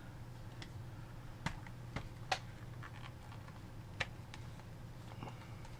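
Scattered light clicks and taps of a PS4 controller's plastic shell and a small Phillips screwdriver being handled during reassembly, over a low steady hum.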